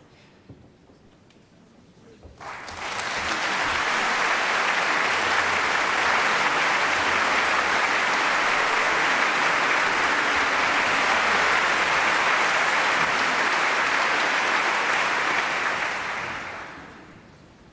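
Concert audience applauding. The applause starts about two seconds in, holds steady, and dies away near the end.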